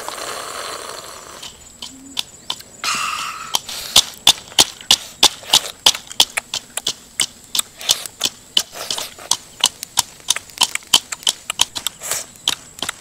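Eating sounds from someone eating crab meat out of the shell: wet sucking and slurping at first, then loud, sharp lip-smacking about three or four times a second.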